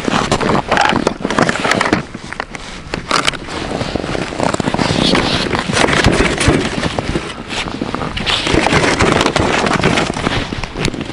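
Continuous crackling and scraping handling noise, thick with small clicks: gloved hands, clothing and snow working around a plastic ice-fishing sled box while a caught zander is put into it.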